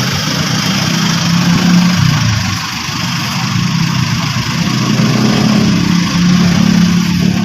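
An engine running steadily, its low hum shifting slightly in pitch, with a steady hiss above it.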